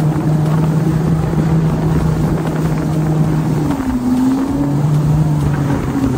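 Jet ski engine running steadily at speed, over a rush of wind and water. About four seconds in, the engine note dips and shifts pitch briefly, then settles back.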